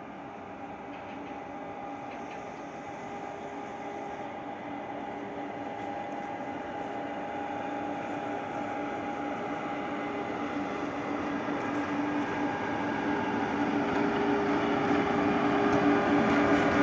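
EP2K electric locomotive hauling a passenger train as it approaches, growing steadily louder, with a steady hum of several tones over the running noise.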